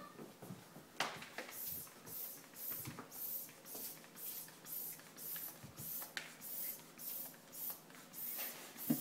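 Hand-held basketball air pump being worked, puffing short hisses of air out of its inflation needle about twice a second.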